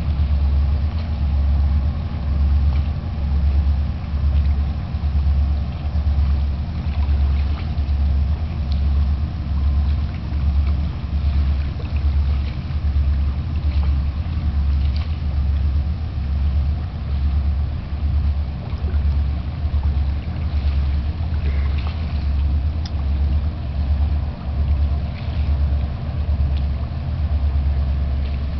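A freighter's engines running as a deep, steady throb that pulses evenly about one and a half times a second.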